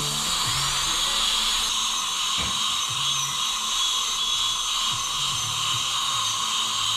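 Dental drill whining as it spins up about half a second in, then holding a high, steady pitch while it mills down the 3D-printed trial teeth to even them out, over a steady hiss.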